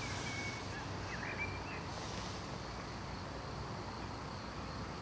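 Quiet garden ambience: a steady low background hum with a few faint, short bird chirps in the first couple of seconds.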